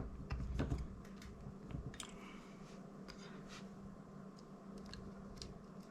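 Light, scattered clicks and scrapes of metal tweezers working at the tiny front-LED connector inside a DJI Mini 2's shell to pull it loose, over a steady low hum.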